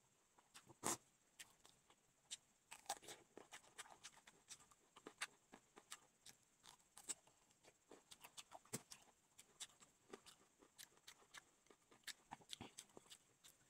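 Faint close-up eating sounds: chow mein noodles being slurped and chewed, with many short, irregular wet mouth clicks and smacks, plus bites of raw cucumber. The loudest click comes about a second in.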